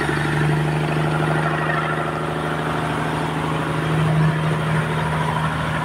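Sawmill's engine running steadily with a constant hum, swelling slightly about four seconds in.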